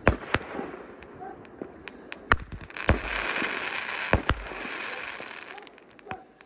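Fireworks going off: sharp bangs of bursting shells, then a dense crackling hiss from about three seconds in that fades out before the end.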